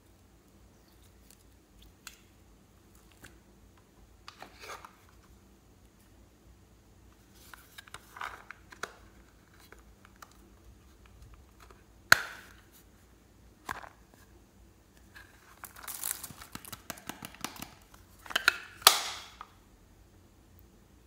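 Small plastic cases being handled and opened by hand: scattered clicks and snaps, the sharpest about twelve seconds in, then a crinkling rustle for a few seconds near the end.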